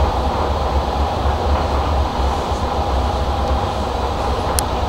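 Low-floor tram rolling along its street track, heard from inside the car: a steady low rumble of wheels on rails. A short sharp click comes near the end.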